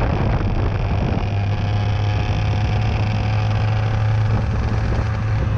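IAME X30 125cc two-stroke kart engine running under steady part throttle, a constant buzzing drone heard from the driver's helmet.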